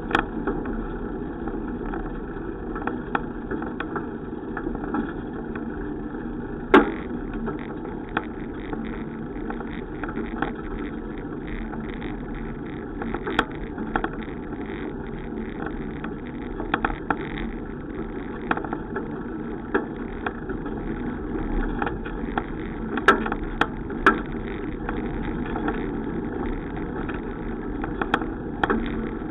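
Riding noise from a bicycle: a steady rumble of tyres and wind, with frequent short rattles and knocks, as over bumps in the road. The sharpest knock comes about seven seconds in, and a cluster follows a little after twenty seconds.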